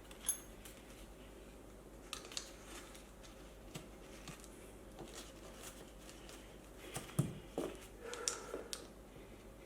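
Hands working a stiff scooter tyre onto an electric unicycle's wheel rim: scattered clicks and knocks, a short metallic ting just after the start, and a cluster of knocks and rubbing about seven to eight seconds in.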